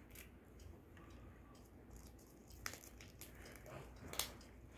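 Near silence with faint handling noise: a few soft clicks and rustles as fingers work a small plastic blind-bag packet.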